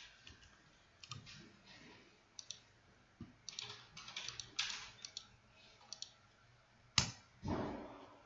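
Computer mouse clicks and keyboard keystrokes: scattered sharp clicks, several in quick pairs. The loudest click comes about seven seconds in, followed by a short, softer noise.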